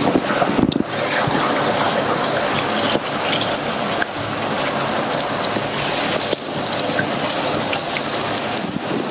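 Steady rush of water from a partly frozen waterfall, with a few faint ticks over it.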